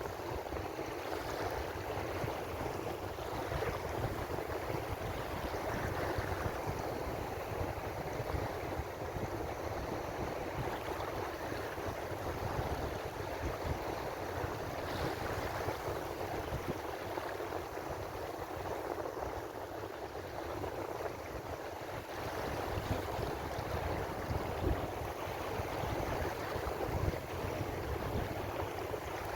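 Ocean waves washing continuously, a steady wash of surf with gentle rises and falls in loudness.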